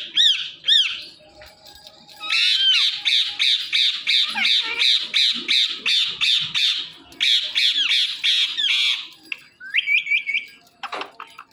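Ringneck parrot (rose-ringed parakeet) squawking: two short high calls, then a long fast run of harsh squawks, about four a second, followed by a short call near the end.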